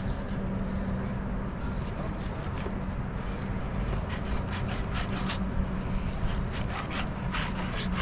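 A 9-inch fillet knife scraping and slicing along a fish fillet on a plastic fillet table, in a series of short strokes from about halfway through, over a steady low hum.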